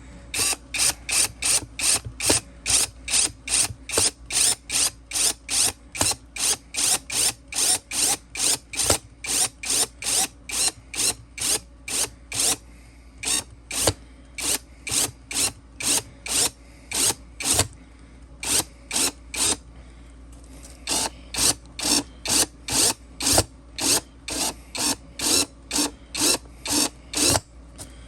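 Cordless drill driving a screw into 3D-printed plastic, run in short bursts, about two or three a second, with brief pauses about halfway and two thirds of the way through.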